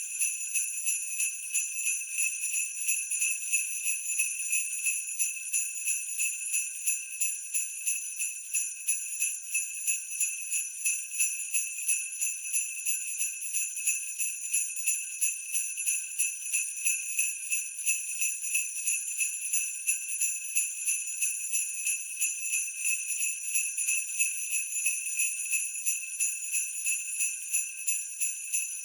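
Sleigh bells jingling in a steady looped rhythm at 90 beats per minute, a bright, high shimmer with an even pulse of shakes.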